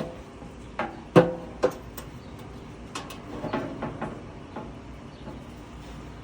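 Handful of sharp metal knocks and clicks, the loudest a little over a second in with a brief ring, as tools and hardware are handled on a furnace blower motor mount while it is being unbolted.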